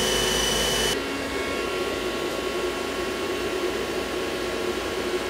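CNC mill running a spring pass of thread milling on titanium with flood coolant, a steady high spindle whine over coolant spray, which cuts off abruptly about a second in. A lower steady machine hum follows.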